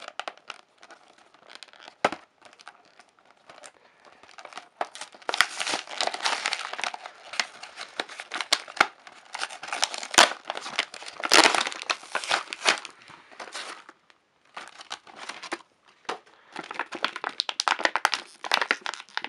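Minions Mineez six-pack being torn open by hand: the packaging crinkles, crackles and tears, with a few sharp clicks. It is busiest through the middle and pauses briefly about two-thirds of the way through before more crinkling.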